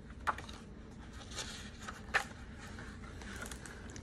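Pages of a hardcover picture book being opened and turned: soft paper rustling with two sharp page flicks, the louder one about two seconds in.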